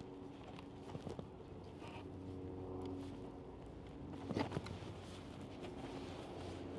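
Plastic clicks and knocks of a Tesla Supercharger plug with a NACS-to-CCS1 adapter being unlatched and pulled out of an electric car's charge port after a charging error. There are a couple of clicks about a second in and a louder cluster of clicks about four and a half seconds in, over a steady low hum.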